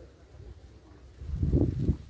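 A low rumbling buffet on the microphone about a second and a half in, lasting about half a second, over faint outdoor background.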